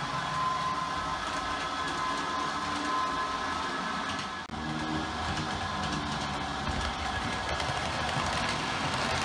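Model train running on the layout track: a steady whirr from the small electric motor and the rumble of wheels on the rails. Near the end a Bachmann OO gauge Class 37 diesel model hauling a test train rolls close past.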